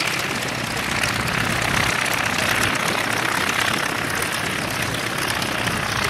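Grumman FM-2 Wildcat's nine-cylinder Wright R-1820 Cyclone radial engine and propeller running steadily at low power as the fighter rolls along the runway.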